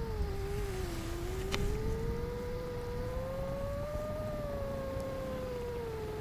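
FPV quad's Brother Hobby 2806.5 motors and 7-inch Gemfan propellers whining in flight, the pitch dipping about a second in, climbing slowly, then easing down near the end as the throttle changes, over a low wind rumble. A single sharp click about a second and a half in.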